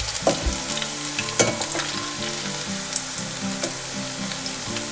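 Onion pakoras deep-frying in hot oil in a stainless steel pan, a steady sizzle and crackle, while a slotted metal spoon stirs and turns them, with a few sharp clicks. The oil is still bubbling hard, the sign that the pakoras are not yet cooked through.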